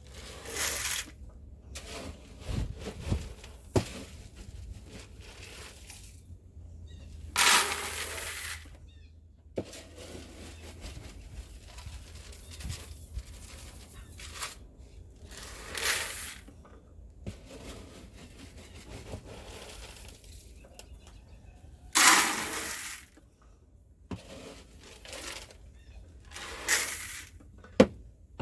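Horse feed being scooped and poured into buckets: a handful of short rushing pours, each about a second long, with knocks and clicks between them.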